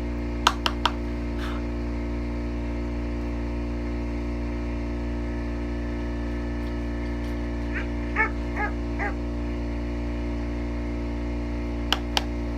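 Small dog yipping, four short high-pitched yips about eight seconds in. A few sharp clicks come near the start and again near the end, over a steady low hum.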